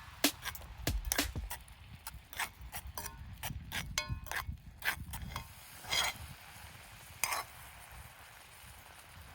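Metal utensils and cookware clinking and tapping in a quick irregular run, a few strikes ringing briefly about halfway through, then thinning out to a faint hiss.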